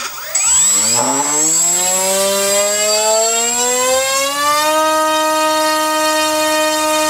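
Turnigy 2826-6 2200 kV brushless outrunner motor spinning a 7x3 propeller on a thrust stand, spooling up from standstill with a steadily rising whine, then holding at a steady speed from about four seconds in. A thin, steady high-pitched tone sits above it.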